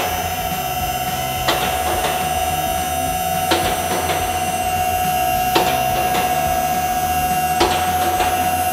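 Mobile column lifts raising a semi truck: a steady whine from the lift's power unit, with a sharp click about every two seconds as the lift's locks ratchet past each notch.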